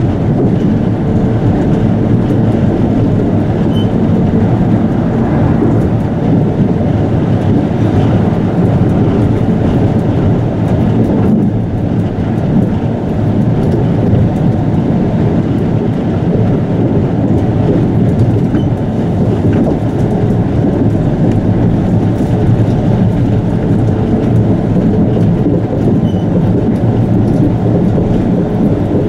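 Chiba Urban Monorail Urban Flyer 0 series car, a suspended monorail on rubber tyres, heard from inside the cabin as it cruises between stations. It gives a steady, even low rumble and drone.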